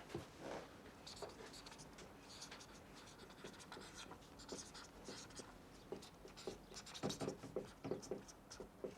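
Faint scratching with light clicks and taps, a little busier near the end.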